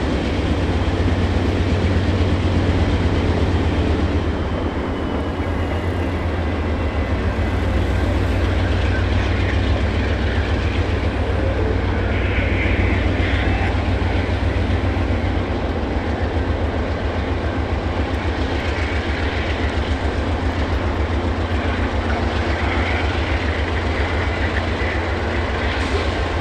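A train rolling past on the rails, with the steady low rumble and wheel noise of its railcars running throughout.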